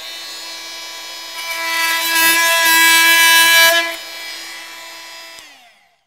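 Bosch oscillating multi-tool running with a steady high-pitched buzz. About one and a half seconds in, its blade plunges into a wooden board, and for about two seconds the sound is louder and harsher. It then eases back to free running, and near the end the motor winds down with a falling pitch.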